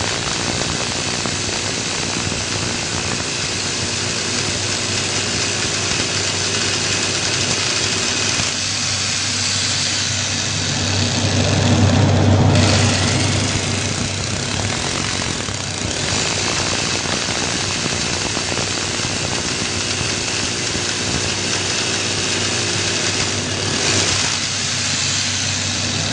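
Power drill running steadily as a drill bit is tested, with a constant motor hum and cutting noise. It grows louder and deeper about halfway through, with short breaks a little later and near the end.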